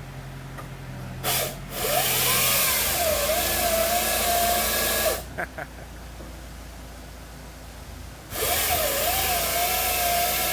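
The chainsaw bar in a tree-removal machine's clamp head cutting through wood twice, each cut lasting a few seconds. Its whine dips under load and then holds steady. The machine's engine runs underneath throughout.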